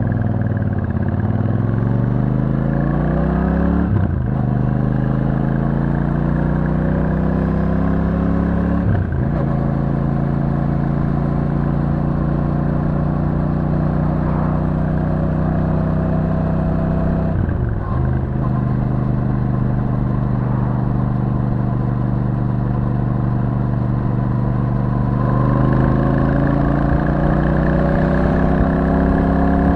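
Royal Enfield Super Meteor 650's 648 cc parallel-twin engine running through its stock exhaust as the bike slows and then pulls away. The revs climb steadily with a brief break and drop in pitch at each upshift, about four, nine and eighteen seconds in, and rise again near the end.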